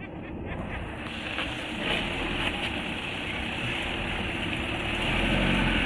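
Engine of an old loaded sand truck running as it works along a wet dirt track, with a hiss coming in about a second in and the whole sound getting louder toward the end.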